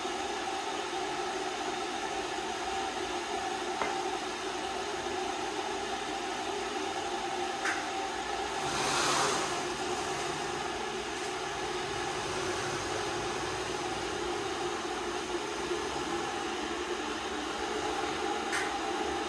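Electric kettle heating toward the boil, a steady rushing hiss. A few light clicks and a brief rustle about nine seconds in.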